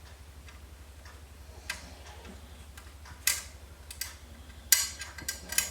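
Scattered metallic clicks and scrapes as a floppy drive is fitted and screwed into a PC case's drive bay. The loudest come about three seconds in and near five seconds in, over a low steady hum.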